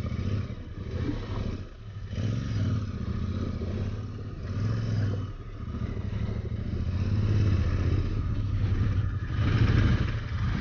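Royal Enfield Interceptor 650 parallel-twin engine running as the motorcycle is ridden, with the throttle opening and closing so the engine note rises and falls. It is louder toward the end.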